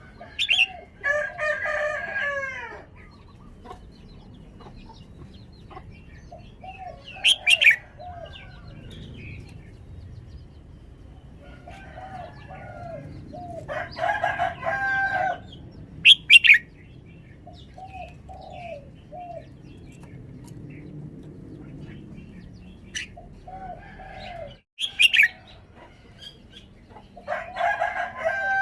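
Red-whiskered bulbul singing, short whistled phrases of gliding notes with sharp high chirps, given in separate bursts a few seconds apart.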